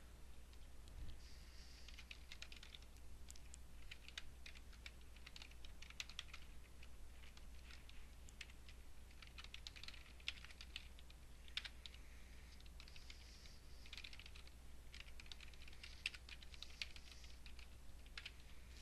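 Faint typing on a computer keyboard: irregular runs of key clicks with short pauses between them.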